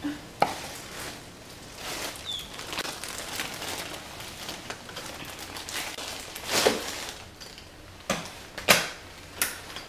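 Handling noises of a delivered package being fetched: rustling with a few sharp knocks and clicks, one just after the start and a cluster in the last few seconds, the loudest near the end.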